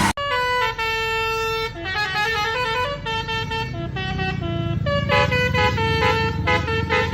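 Tour bus 'telolet basuri' musical air horn playing a tune of quickly stepping notes over the low rumble of the bus's engine.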